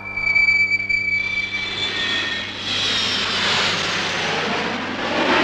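Jet aircraft passing low: a high engine whine at first, then a loud broad rushing noise that builds about halfway through and holds.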